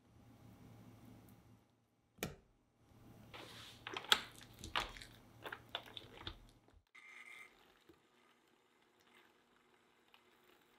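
Electric mixer with twin wire whisks beating cream and cream cheese in a glass bowl. A low motor hum comes first, then a couple of seconds in a run of sharp clicks and rattles as the whisks knock against the glass and the lumps of cream cheese. After that it runs on faintly.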